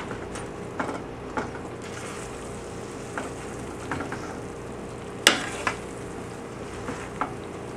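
A metal spoon folding spinach into a simmering curry in a skillet: a steady low sizzle with scattered clinks and scrapes of the spoon against the pan, the sharpest clink a little past halfway.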